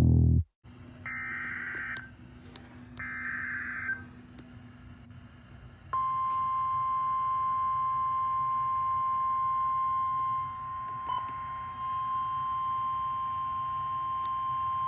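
NOAA Weather Radio Emergency Alert System signal heard over a radio receiver: two short buzzy data bursts of the alert header, then the long steady single-pitch warning alarm tone, starting about six seconds in. A faint low hum runs underneath.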